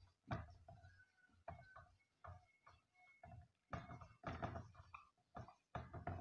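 Faint scratching strokes of a marker pen writing on a whiteboard: short, irregular scrapes with an occasional brief thin squeak.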